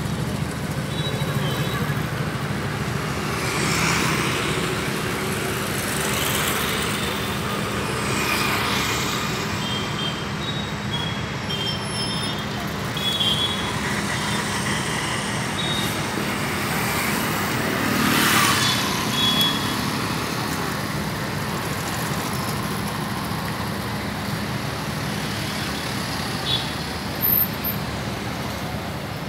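City street traffic: a steady hum of engines and tyres from motorcycles and cars, with several vehicles passing close by, the loudest about eighteen seconds in.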